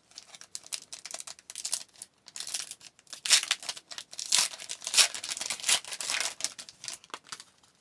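A hockey card pack's wrapper being torn open and crinkled by hand: irregular crackling, busiest and loudest in the middle, fading near the end.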